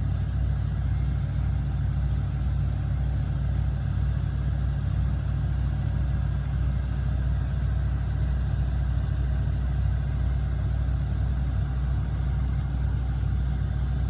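Diesel engine of heavy earthmoving machinery running steadily, a constant low rumble with no sharp knocks or changes in pace.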